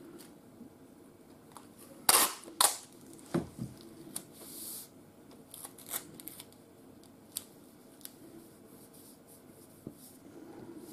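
A piece of sellotape being pulled and snapped off the roll, with two sharp snaps about two seconds in, followed by a few light clicks and handling sounds as the strip is placed under the end of the engineer's level.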